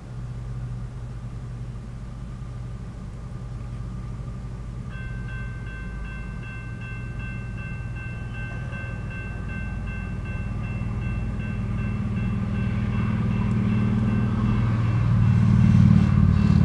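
Railroad crossing warning bell starts about five seconds in and rings in quick, even strokes as the crossing signals activate. Over a steady low hum, a low rumble builds in the last few seconds as the train approaches.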